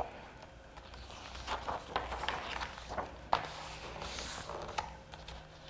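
Paper rustling and crackling as a thick book page is folded and creased along its perforated line, with a few soft taps and a brief rustle about four seconds in.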